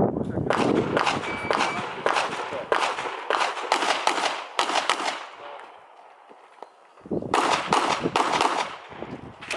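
Handgun fired in quick succession during an IPSC course of fire, the shots echoing briefly. A fast string of about a dozen and a half shots is followed by a pause of about two seconds, then a shorter string of about five shots, and more shots begin near the end.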